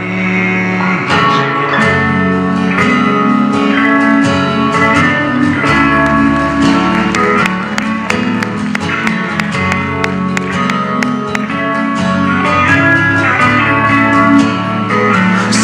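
Music led by plucked guitar, with many quick note attacks.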